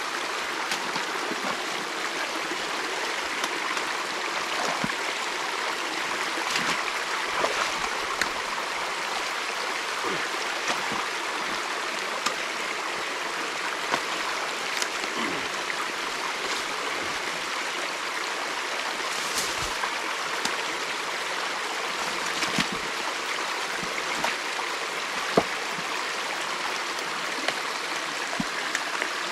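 Creek water running steadily past the drained beaver dam, with a few scattered light clicks and knocks.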